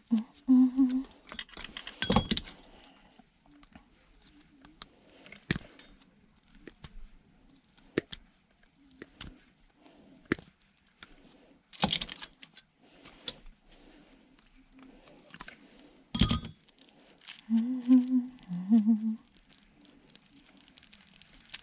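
Irregular sharp clicks and metallic clinks of hand tools and small metal and plastic parts during the teardown of small electronics, as a little circuit board is cut and pried free. The louder snaps come a few seconds apart.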